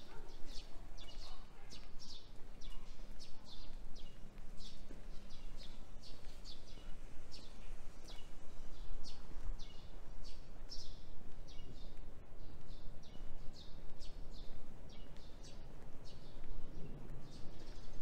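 Small birds chirping over and over: short high chirps, about two or three a second, with a steady low hum of city background underneath.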